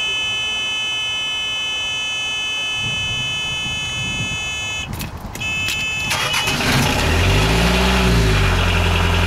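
A steady high warning-buzzer tone from the ignition panel sounds while the diesel's glow plugs preheat. About five seconds in it breaks off, the starter cranks, and the narrowboat's raw-water-cooled diesel engine catches about seven seconds in, its speed rising briefly before settling into a steady idle.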